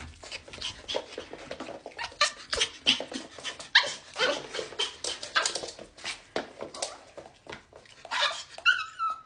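A dog yipping and whimpering in quick short calls, with a longer high whine near the end.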